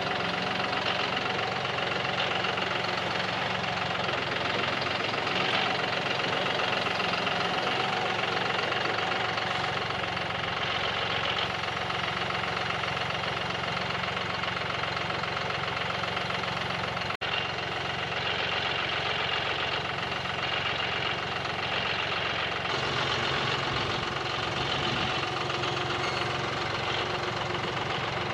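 John Deere 5055 tractor's diesel engine running steadily, with an instant break about two-thirds of the way through.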